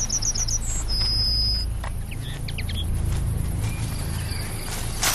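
Small birds calling in a woodland meadow: a quick run of about six high, short notes at the start, a steady high whistle about a second in, and scattered short chirps, with a fast high trill returning at the end. A low steady rumble runs underneath.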